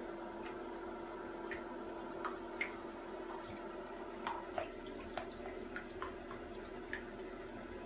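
Small scattered drips and plinks of shallow bathwater stirred by a baby Chacoan tegu paddling through it, coming more often from about halfway in, over a steady low hum.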